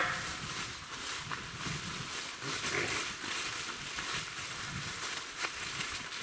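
Dry fallen leaves rustling and crackling under dogs running and playing and a person walking through them, with a short dog vocalisation about three seconds in.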